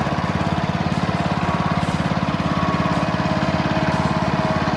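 John Deere riding lawn mower's engine running steadily, with a fast, even putter and a thin steady whine above it.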